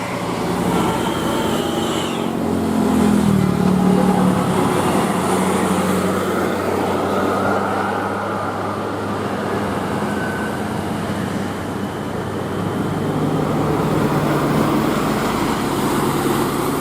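Road traffic with a heavy engine, likely a passing bus, running over steady road noise; the engine note rises about two to three seconds in as it speeds up.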